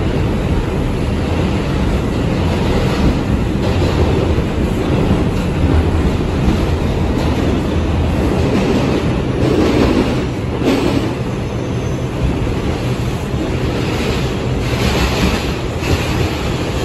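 R142 subway car running through a tunnel, heard from inside the car: a loud, steady rumble of wheels on rail and car body. It turns harsher and brighter for a moment about ten seconds in and again near the end.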